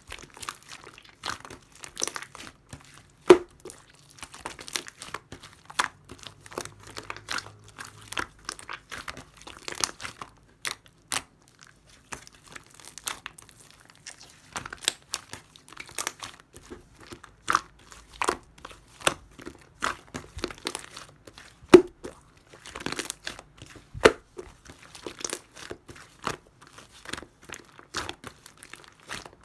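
Slime being squished, stretched and folded by hand: a steady irregular stream of sticky clicks, crackles and small pops, with a few louder snaps.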